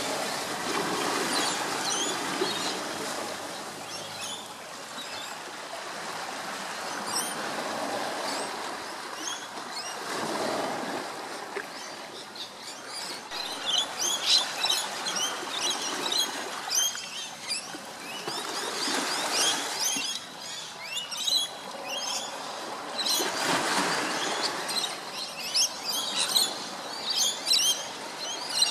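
Small birds chirping and calling in a busy chorus of short, quick notes, thickest in the second half. Beneath them runs a rushing background noise that swells and fades several times.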